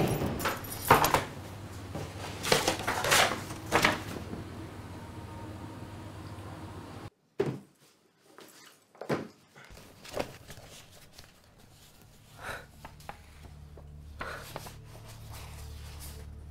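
Several sharp footsteps on a stairwell, then an abrupt cut to silence. After that come soft knocks and rustling as someone rummages through a desk and handles papers, with a low steady hum underneath near the end.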